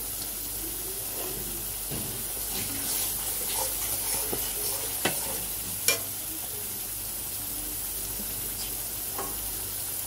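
Ginger-garlic-onion-tomato spice paste sizzling in oil in a metal kadai while a metal spatula stirs and scrapes it. The spatula clinks sharply against the pan twice, a little after halfway.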